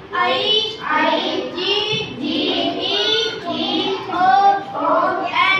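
Young children singing.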